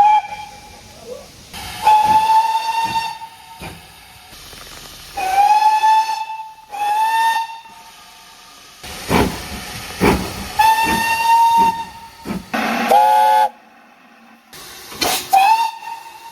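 British steam locomotive whistles in a string of separate blasts, each a single shrill note that slides up into pitch at its start, with steam hissing between them. One blast about three-quarters of the way through is a lower chord of several notes sounding together.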